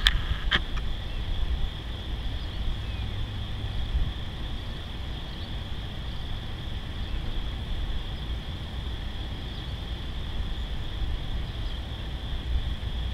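Low, steady rumble of a Norfolk Southern train's diesel locomotives as it pulls into the station. A steady high-pitched drone sits over it, and there is a brief squeak about half a second in.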